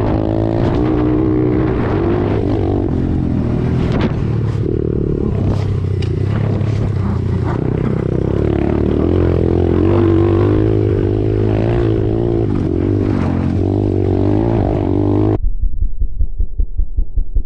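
Pit bike and dirt bike engines running and revving, the pitch rising and falling as the riders chase each other. About fifteen seconds in, the sound abruptly turns muffled, with a quick pulsing throb.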